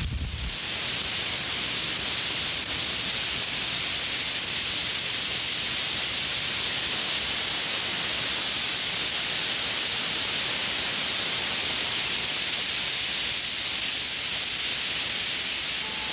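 A steady, even hiss, strongest in the upper range, with nothing else over it.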